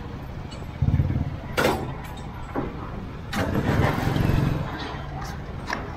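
A motor vehicle engine running, revving up twice, briefly about a second in and longer from just past three seconds, with a few sharp knocks in between.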